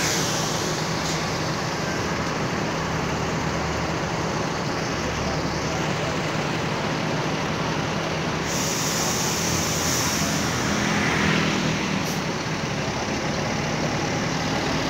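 Heavy, slow road traffic: buses, cars and motorcycles running their engines close by as they crawl past. A long hiss starts about eight seconds in and fades after a few seconds.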